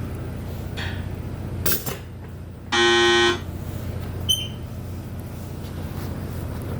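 Steady low mechanical hum, broken about three seconds in by one loud horn-like beep lasting about half a second, with a short click shortly before it.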